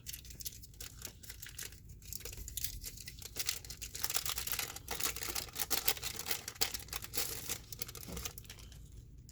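The wrapping of a pack of cardboard card dividers being torn open and crinkled by hand, making an uneven run of crackles and small tearing sounds.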